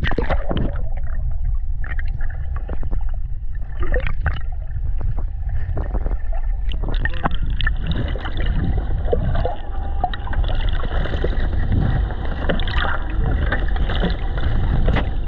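Water noise picked up by a camera held underwater: a steady low rumble with scattered crackles and clicks.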